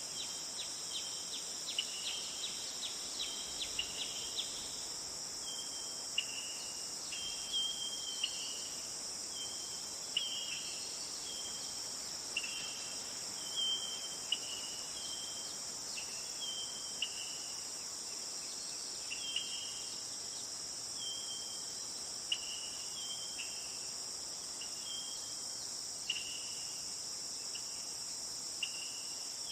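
Night insect chorus of crickets: a steady high-pitched drone with short chirps repeating about once a second. In the first few seconds the chirps come as a quicker run of ticks.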